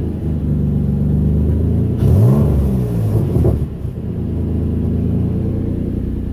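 Turbocharged Nissan 350Z 3.5-litre V6 running, blipped once about two seconds in so the pitch rises and falls, with a few small pops as it drops back to idle. It has an exhaust leak, which the owners have noticed.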